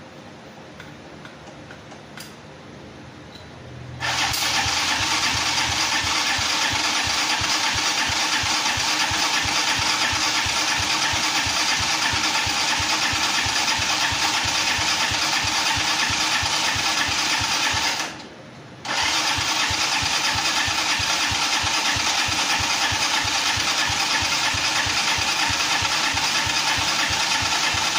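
Coolster 250cc ATV's single-cylinder four-stroke engine catching on the third try about four seconds in, then running loud and steady. The sound drops out for under a second a little past halfway, then comes straight back.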